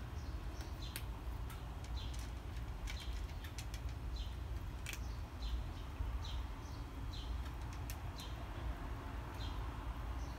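A cat chewing food from a plastic tray, with scattered small clicks, over a low steady outdoor rumble. Short high chirps that fall slightly in pitch repeat about once a second, like a small bird calling.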